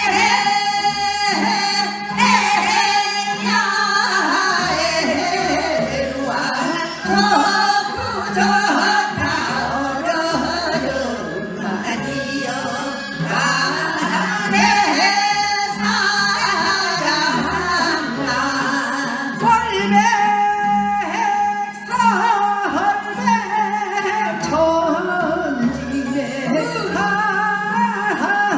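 Korean Gyeonggi folk song (minyo) being sung, with long, wavering held notes over instrumental accompaniment and a repeating low drum beat.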